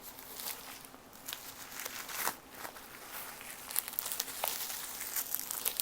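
Packaging being handled and pulled away from a book: irregular crinkling and rustling with a few sharper crackles.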